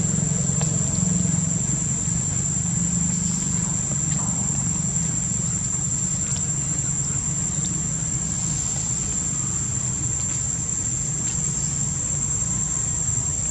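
Insects droning steadily at a high pitch, over a low steady hum like a distant engine.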